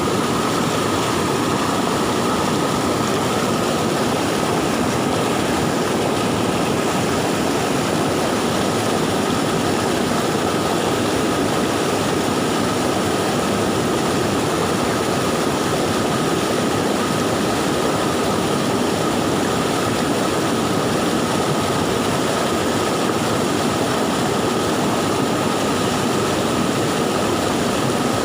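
Swift floodwater in a river, a steady rushing noise, with a thin steady high tone above it.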